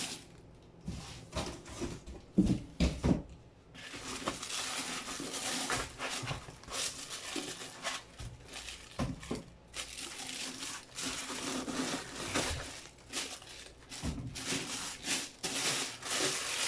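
Clear plastic bag wrapped around a power inverter crinkling and rustling as it is handled, with a few sharp knocks two to three seconds in.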